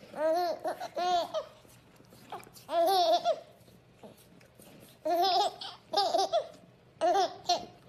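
Baby laughing in about six short, high-pitched bursts of giggles, each rising and falling in pitch, with brief pauses between them.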